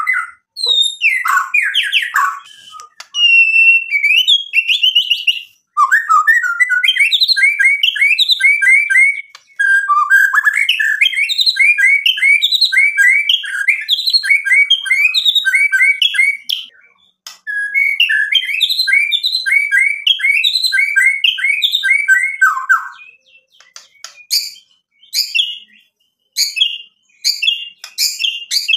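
White-rumped shama singing: long runs of fast, repeated whistled notes broken by a few short pauses, ending with a string of sharp rising whistles in the last few seconds.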